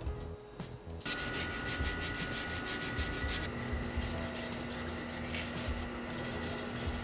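Hand sanding of a painted bike frame: sandpaper rubbing back and forth in quick, even strokes that start about a second in.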